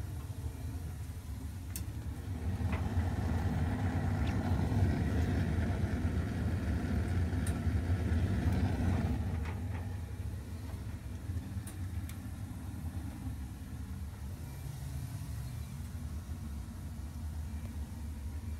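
Heating equipment in a boiler room running: a steady low motor hum and rumble, louder with a rushing noise from about two seconds in until near the tenth second, with a few light clicks.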